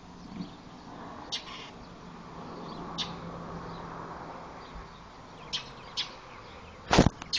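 Bird giving short, sharp alarm chirps every second or two, mobbing a cat it treats as a predator. A louder sharp click near the end.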